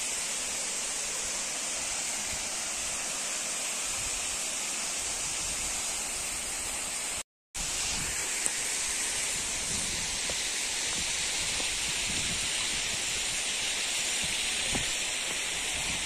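Steady hiss of a mountain stream cascading over rock slabs, with a momentary total dropout about seven seconds in.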